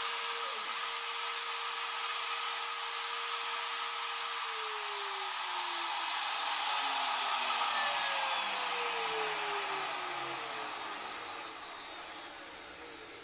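The CNC router's spindle router, fitted with a V-bit, runs at steady speed with a high whine, then is switched off about four seconds in and winds down with falling tones, its noise slowly fading. This is the end of the V-carving program.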